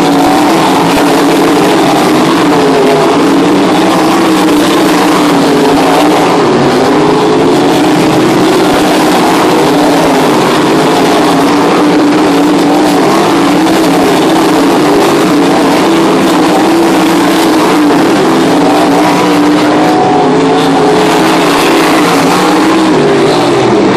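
A pack of winged sprint cars racing on a dirt oval. Their V8 engines run loud and continuously, the pitch rising and falling as the drivers get on and off the throttle through the turns.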